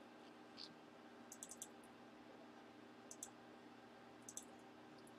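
Near silence broken by a few brief clusters of faint computer mouse and keyboard clicks.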